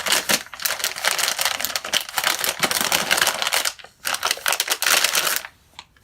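Packaging crinkling and rustling as a graphics card is unwrapped: a dense run of crackles and small clicks, with a brief pause near four seconds, stopping about five and a half seconds in.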